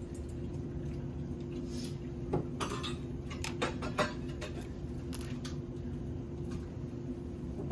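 British Shorthair kitten purring steadily, a low continuous rumble, with a few light sharp clicks and taps between about two and five and a half seconds in.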